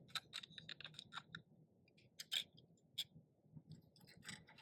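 Faint scattered clicks and light taps: a quick run of them in the first second and a half, then a few sparse ones.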